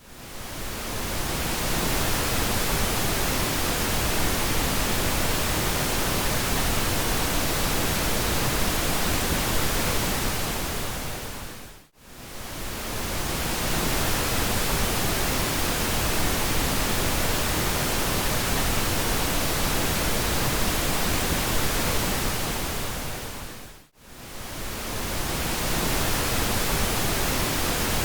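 Steady pink noise, an even hiss spread across low and high pitches. It fades in at the start, then twice, about twelve seconds apart, dips briefly to near silence and fades back up.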